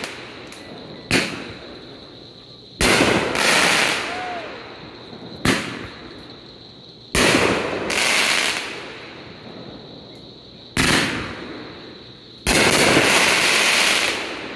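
Aerial fireworks going off three times. Each is a short sharp bang followed about a second and a half later by a louder burst that crackles on for one to two seconds. A faint steady high tone runs underneath.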